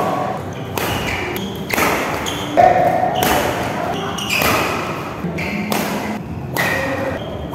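Badminton rally: sharp racket hits on the shuttlecock about once a second, with short squeaks of court shoes on the floor between them.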